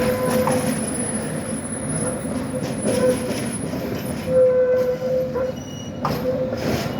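City tram running along street track with a steady rumble, its wheels giving off short squeals that repeat on and off, the longest held for under a second about halfway through.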